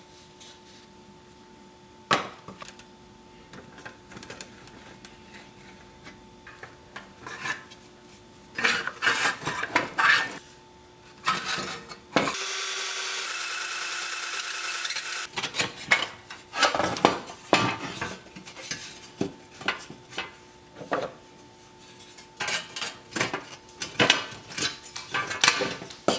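Metal clinks, clanks and scrapes of a pressed-steel Tonka dump truck and hand tools as the toy is taken apart. A steady whirring noise runs for about three seconds near the middle.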